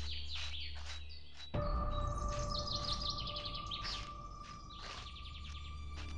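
Birds chirping and trilling in quick, repeated calls over a low background music drone; a sustained music note comes in suddenly about a second and a half in and fades out near the end.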